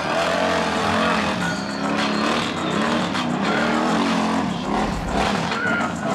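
ATV engine revving up and down repeatedly as the quad climbs over obstacles, its pitch rising and falling every second or so.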